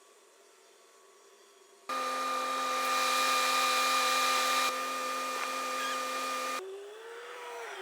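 A machine running with a steady, evenly pitched whine and hiss that cuts in abruptly about two seconds in and cuts out about two-thirds of the way through; afterwards a quieter motor tone that rises and falls.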